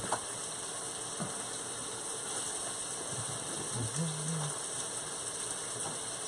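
Faint steady sizzle of peppers and onions sautéing in butter in a pan, with a few soft clicks and knocks from rummaging in a low refrigerator.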